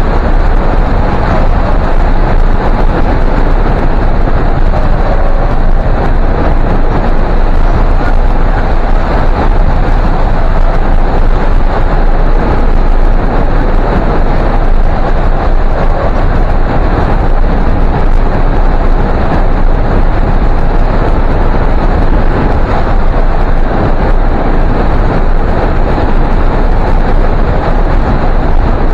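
Loud, steady rush of airflow buffeting the microphone of a hang glider in flight, with no engine note or other distinct sound in it.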